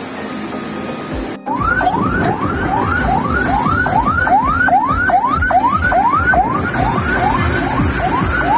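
Electronic siren-style alarm whooping rapidly, about two and a half rising sweeps a second, starting abruptly about a second and a half in, over traffic noise. Before it, a steady wash of noise.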